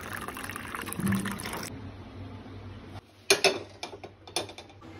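Tap water running into a steel bowl of soaking nuts, which stops suddenly after about a second and a half. Later come a few sharp metallic clicks and knocks around a steel pot on a gas stove, about three and a half and four and a half seconds in.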